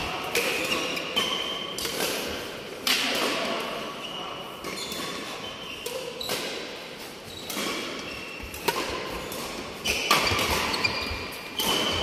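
Badminton doubles rally: rackets striking the shuttlecock about once a second, sharp cracks echoing in a large hall, with shoes squeaking on the court mat between shots.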